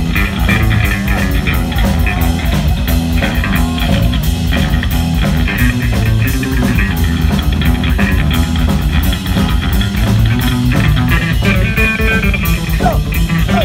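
Loud live electric bass guitar solo through stage amplification: a dense run of low picked notes in a steady, even rhythm.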